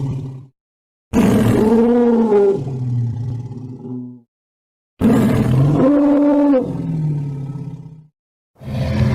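Tyrannosaurus rex roar sound effect: two long roars of about three seconds each, cut apart by dead silence, each rising and falling in pitch and trailing off into a low growl. The tail of a previous roar ends just at the start, and a noisier rumbling sound begins near the end.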